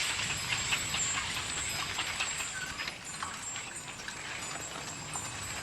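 Steady open-air background hiss with scattered faint clicks and knocks, dropping slightly in level about three seconds in.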